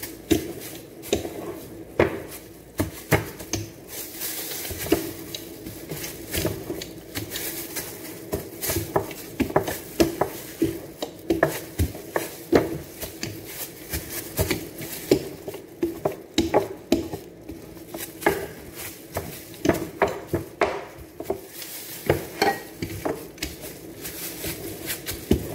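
Gloved hands working a sheet of bread dough on a tabletop: frequent, irregular knocks and taps against the table over a steady low hum.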